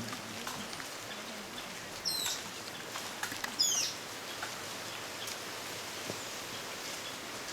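Rainforest ambience with a steady background hiss and a bird giving two short, falling calls about two and three and a half seconds in.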